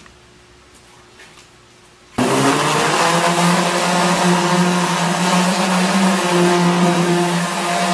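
Electric orbital sander switching on about two seconds in and then running steadily as it sands a wooden slab with 120-grit paper, a constant motor hum under the hiss of the pad on the wood.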